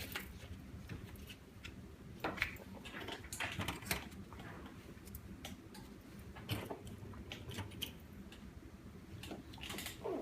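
Light irregular clicks and short rubbing swishes of hands working on an iPhone 6 LCD, cleaning leftover glue off the glass with a cleaning liquid, over a low steady hum.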